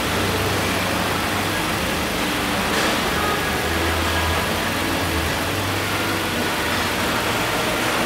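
A car engine idling steadily: a low hum that swells and fades a little, under a constant hiss.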